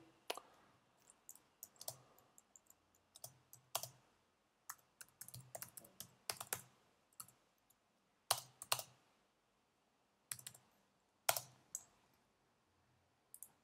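Computer keyboard typing: faint, irregular keystrokes with short pauses between runs of keys.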